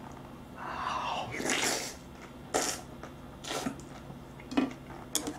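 A person slurping noodles from chopsticks: one long slurp about a second in, then several short slurps and mouth smacks while chewing.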